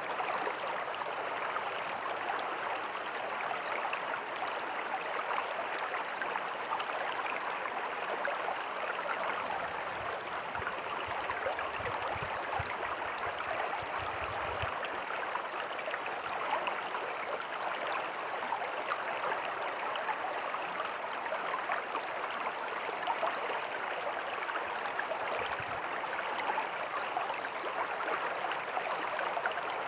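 Small creek flowing over rocks with a little waterfall: a steady splashing, bubbling wash of water.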